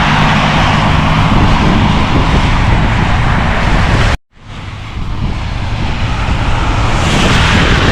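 Strong storm wind buffeting the microphone as a loud, steady rush with a low rumble, with a sudden brief dropout about four seconds in before the noise builds back.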